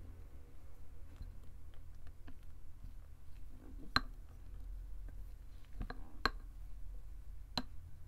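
Pink silicone spatula stirring a white foamy slime mixture in a glass bowl, with four sharp clicks of the spatula striking the glass, the loudest about halfway through.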